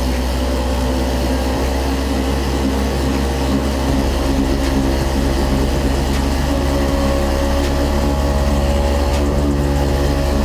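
Handheld electric massage gun running steadily on tight muscles: a loud, even motor hum with a low drone beneath it, its pitch shifting slightly about four seconds in.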